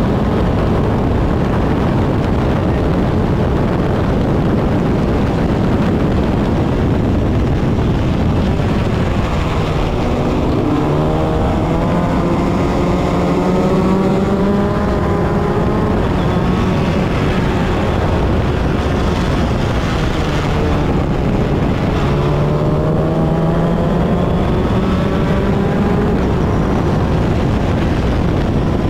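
In-cockpit sound of an open-wheel formula race car running at race pace, with a heavy rush of wind noise on the microphone. About a third of the way in, the engine note climbs steadily in pitch under acceleration, drops away, and climbs again near the end as the car accelerates through the gears.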